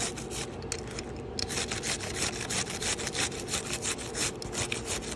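Cabbage being shredded on a cabbage grater: quick rasping strokes of the cabbage across the blade, a few a second, with a short pause about a second in.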